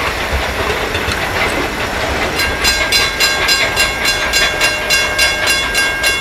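Passenger cars of a steam-hauled train rolling away along the track, wheels clacking over the rails. About two seconds in, a rapid even pulsing, about four a second, with a high steady ringing over it, sets in and runs on.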